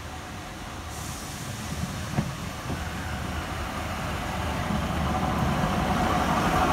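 Class 153 diesel railcar drawing into the station, its underfloor diesel engine and wheels on the rails growing steadily louder as it nears, with a single sharp knock about two seconds in.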